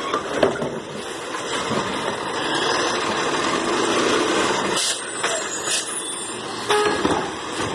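Automated side-loader garbage truck working: its diesel engine and hydraulic lift arm run as the arm lowers and handles a wheeled plastic trash cart. The sound swells midway, with several sharp knocks and clatters.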